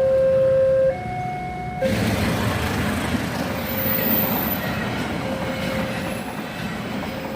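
A bus's musical telolet horn holds one note, then jumps to a higher note and cuts off just under two seconds in. A train then passes over the crossing with a steady rumble and the clatter of wheels on the rails.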